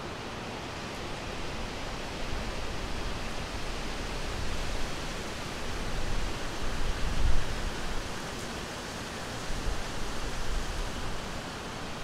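Steady rushing wind, with low gusts buffeting the microphone that swell and fall, the strongest about seven seconds in.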